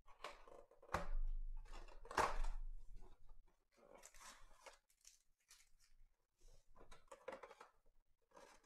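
Cardboard trading-card box being torn open along its perforated lid and handled: several short bursts of tearing, scraping and rustling cardboard, the loudest about one to two and a half seconds in.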